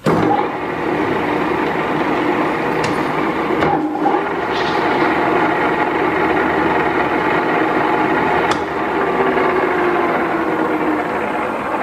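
Goodway GW-1440 engine lathe starting up, its spindle and collet chuck then running steadily. The steady mechanical hum carries a few held tones from the headstock, with a brief dip about four seconds in.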